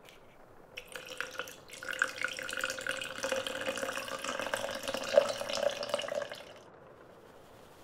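Water pouring into a plastic blender cup onto the batter ingredients. It runs steadily for about six seconds, its pitch rising slightly as the cup fills, and stops near the end.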